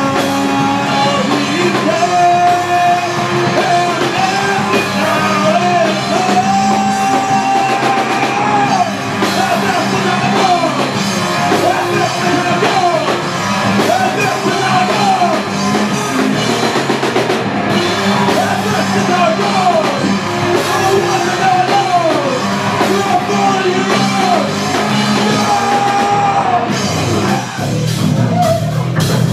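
Live rock band playing a song: guitars and drum kit with a singer yelling the vocal into a microphone. Near the end the held sung notes stop while the band carries on.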